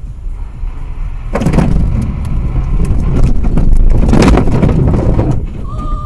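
Dashcam audio of a vehicle crash: steady road and engine rumble, then from about a second in a loud stretch of crunching, crackling impact noise lasting about four seconds, followed by a short beep near the end.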